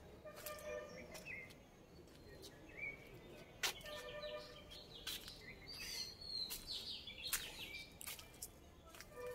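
Several birds chirping and calling, with quick rising and falling chirps throughout. A lower, held call with overtones comes twice, about half a second in and again about four seconds in. A few sharp clicks stand out, the loudest a few seconds in.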